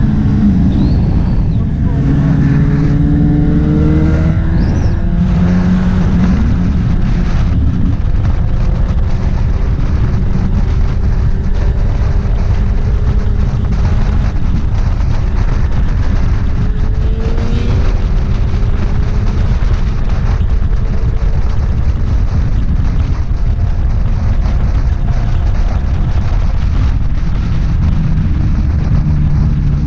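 Motorcycle engine and exhaust running loud and steady under way, its pitch rising and falling a few times with the throttle.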